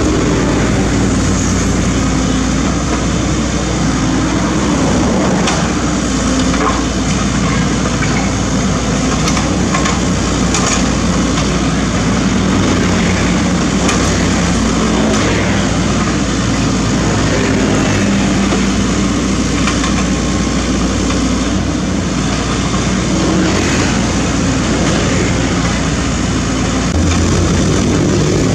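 Sany SC75 mini excavator's diesel engine running steadily while it works, with scattered knocks and scrapes of rock and gravel under the bucket and tracks.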